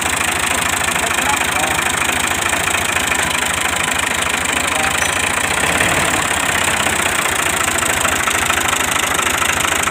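Flour mill (chakki) running steadily: a loud, even grinding noise with a fast low pulsing underneath.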